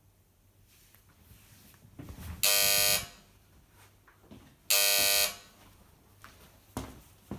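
Apartment door buzzer rung twice, each a flat, steady electric buzz of about half a second, the second a little over two seconds after the first. A few faint clicks follow near the end.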